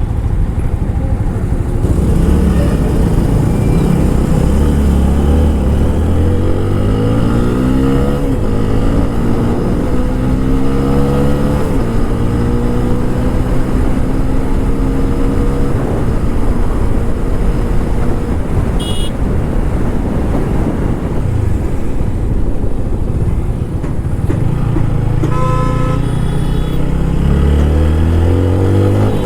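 TVS Apache RTR 160 4V single-cylinder engine through its stock exhaust, accelerating up through the gears in rising steps, cruising steadily, easing off, then pulling hard again near the end, with wind rush over it. A horn toots briefly about three quarters of the way in.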